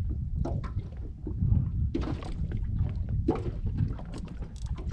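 Wind rumbling on the microphone and water lapping against the side of an inflatable boat, with louder noisy surges about two seconds and three seconds in.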